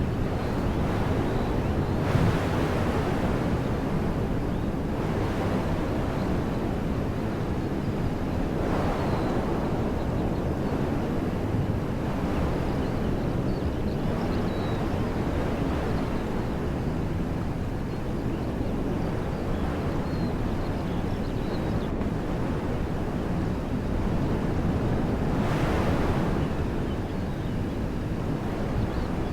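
Wind blowing through trees as a steady rush, swelling in gusts about two seconds in, around nine seconds and near the end, over a low rumble of wind on the microphone.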